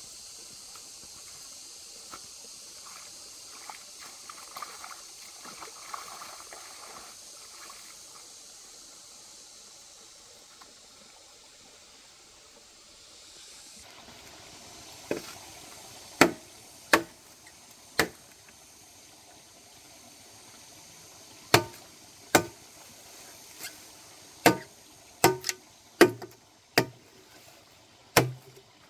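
A steady high hiss in the background, then, from about halfway, about a dozen sharp knocks at uneven spacing, like a hand tool striking wood or ground.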